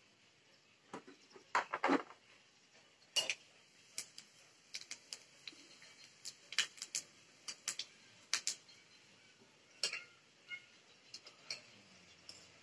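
Metal spatula knocking and scraping against a metal kadai as whole fennel and cumin seeds are stirred in oil: irregular sharp clicks, one every half second to a second or so.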